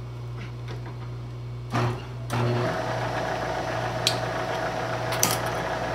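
Milling machine spindle motor switched on about two seconds in, then running steadily with a hum and hiss at 1200 RPM. Two sharp clicks come later.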